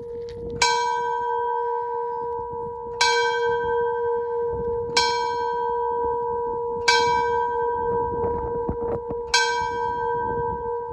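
Large brass locomotive bell rung five times, a stroke about every two seconds, its deep tone ringing on without pause between strokes.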